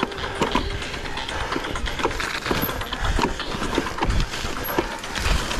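Mountain bike riding over rough trail: irregular clattering and knocks from the tyres and bike, over a low rumble.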